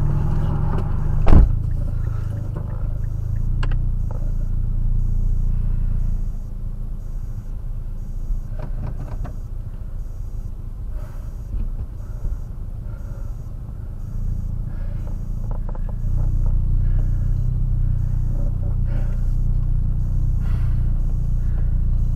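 Low steady rumble from inside a Mazdaspeed 3 as it is pushed by hand at walking pace, with a sharp knock about a second in and scattered light knocks and creaks after it.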